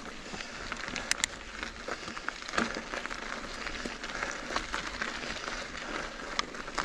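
Giant Reign 29-inch mountain bike ridden along dirt singletrack: tyres crackling over grit and small stones, with scattered sharp clicks and knocks from the bike as it rolls over bumps.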